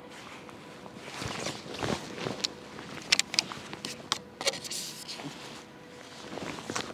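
Clothing rustle and tackle-handling noise as an angler works his rig and pushes a long fishing pole out over the water. A few sharp clicks come about three seconds in and again a second or so later.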